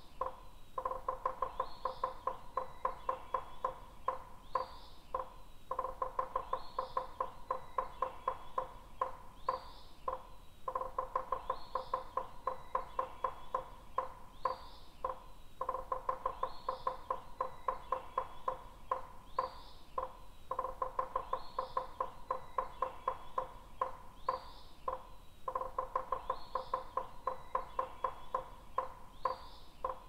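Woodpecker hammering on wood in long bouts of rapid taps, each about five seconds long with a short pause between. Short rising bird chirps repeat every second or two over it.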